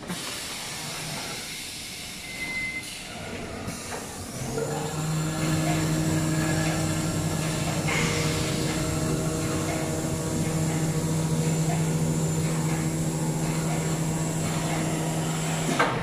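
Sand 3D printer's machinery running: about four seconds in, a steady motor hum with a hiss starts up and holds even. It stops just before the end with a sharp knock.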